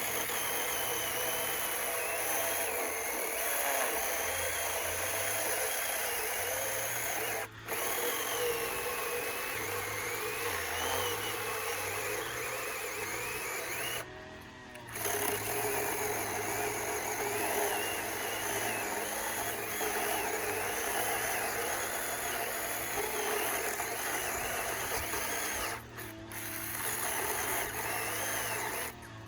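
Handheld mini electric chainsaw cutting through a thick log, its motor whine wavering in pitch under load and stopping briefly three times, about 7 s in, around halfway and near the end. Its short bar makes slow work of a stump this thick.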